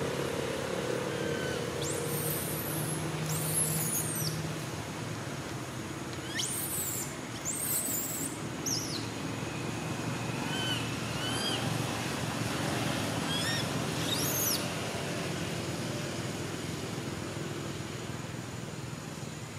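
Outdoor ambience: a steady low engine-like rumble, with scattered high, quick chirping bird calls from about two to fifteen seconds in.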